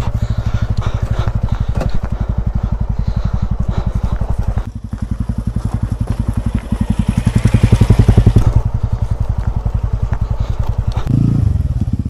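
TVS Ronin's single-cylinder engine running under way, its firing pulse steady; the engine note drops about five seconds in, then builds to its loudest around eight seconds.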